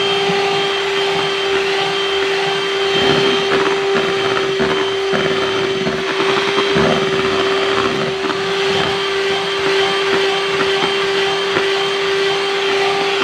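Electric hand mixer running with a steady motor whine, its twin beaters whipping an egg, sugar and baking powder batter in a glass bowl.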